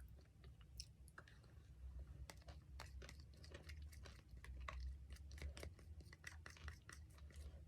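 Faint chewing and crunching of Greek yogurt mixed with dry oatmeal, as many small irregular crunches and clicks close to the microphone.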